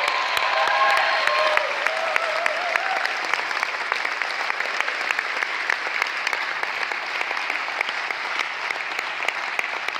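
Audience applauding at the end of a song, a dense steady clapping, with a few voices calling out during the first few seconds.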